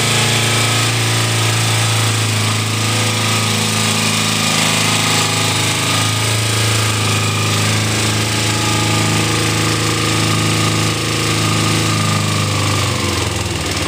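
2007 Kawasaki Ninja 250's parallel-twin engine idling steadily while warming up after a cold start. Near the end the engine note drops slightly as the sensitive choke is adjusted.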